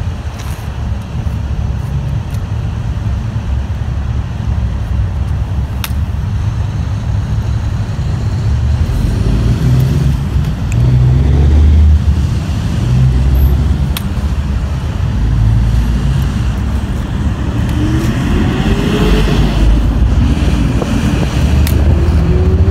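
Low rumble of road traffic, swelling about halfway through and again near the end, with a few faint clicks.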